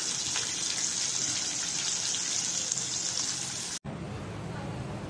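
Flour-coated chicken legs deep-frying in hot oil: a steady sizzling hiss with small crackles. It cuts off abruptly about four seconds in, leaving a quieter low hum.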